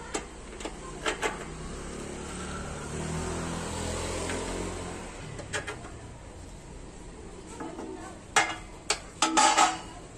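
Metal clinks and knocks as metal bars and a cutting jig are set down and shifted on the steel base of a cut-off saw. There are a few light knocks near the start, and a cluster of louder clanks near the end.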